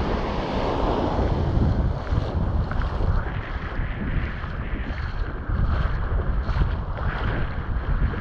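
Strong wind buffeting the microphone in low gusts, over the wash of Barents Sea waves on the shore.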